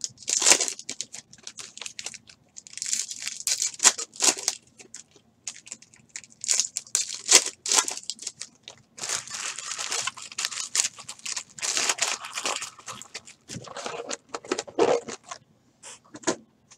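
Foil trading-card pack wrappers being torn open and crinkled by hand, in a string of short rips and rustles.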